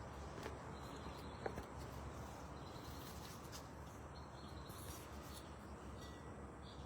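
Faint outdoor garden ambience: a steady low background hiss with a few light clicks, the sharpest about one and a half seconds in.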